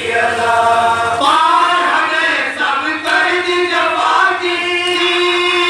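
A group of male reciters chanting a noha, a Shia lament, together in unison over loudspeakers. The phrases glide, and a long held note begins about halfway through.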